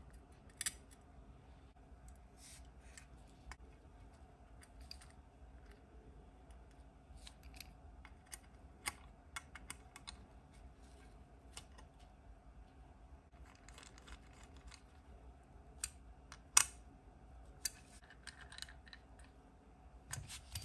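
Scattered small clicks and snips of hand tools and parts being handled during RC excavator kit assembly, the loudest a single sharp click about two-thirds of the way through. A faint steady hum runs underneath.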